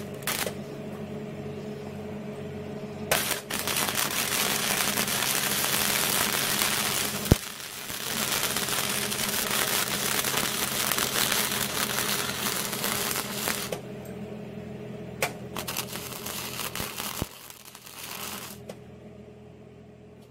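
Flux-core MIG welder arc crackling and sputtering in three long runs of welding, each several seconds, with short quiet gaps between beads. A steady low hum sits underneath.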